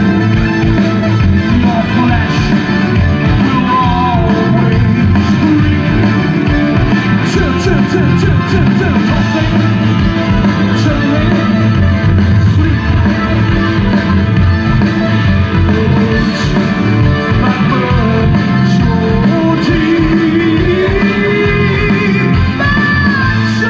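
Live progressive rock band playing loudly through a large outdoor PA, heard from the audience: drums, bass, electric guitars and keyboards, with a singer's voice over them.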